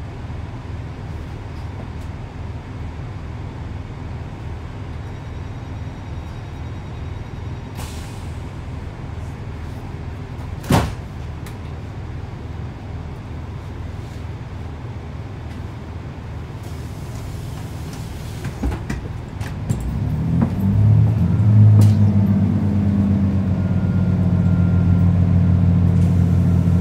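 Diesel engine of a Class 165 Networker Turbo diesel multiple unit running at a steady low hum, with a single sharp click about eleven seconds in. About twenty seconds in the engine note rises and grows louder as the unit powers up to pull away.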